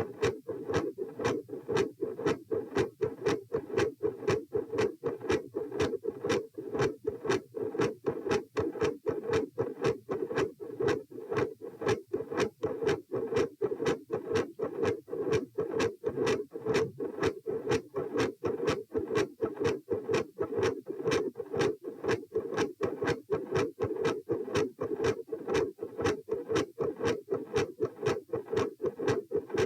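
Human heartbeat heard through a stethoscope at the pulmonic listening area: a steady, regular rhythm of lub-dub beats with a consistently loud second heart sound (S2) and a first sound (S1) that varies in strength.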